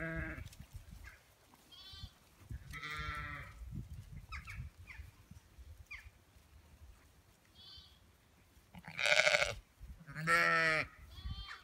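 Zwartbles ewes and lambs bleating: a string of quavering bleats, the lambs' high and thin, the ewes' deeper. The two loudest come close together near the end.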